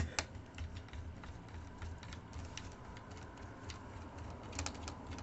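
Small screwdriver turning out tiny screws in a netbook's plastic shell: a run of light, irregular clicks and ticks, sharper at the start and again near the end, over a faint steady low hum.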